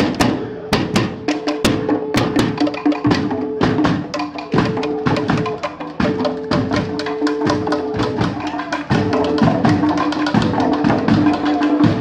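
Live street-band percussion: drums and wooden percussion struck in a fast, driving rhythm, several strikes a second, with steady held tones sounding underneath.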